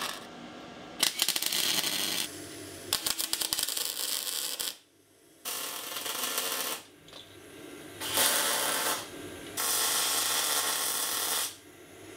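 Electric arc welding of steel handrail posts to the stair frame, in about five bursts of a second or two each with short pauses between.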